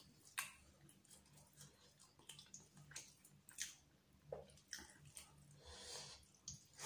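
Faint wet squishing and clicking of fingers mixing and squeezing oily biryani rice on a steel plate, in short irregular bursts with one sharper click about half a second in.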